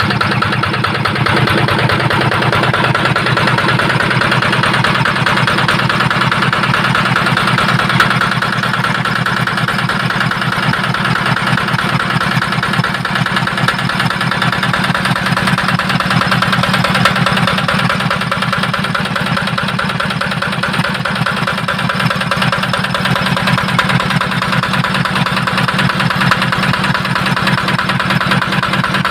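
Yanmar TF65 single-cylinder diesel engine running steadily, driving an Ebara 3-inch water pump on a test run that found it in good working order.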